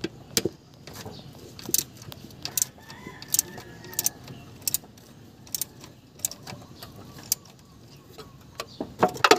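Socket ratchet clicking in single sharp clicks, about one every second or a little faster, as the timing-belt tensioner bolt is worked loose, with a quick cluster of louder metal clicks near the end.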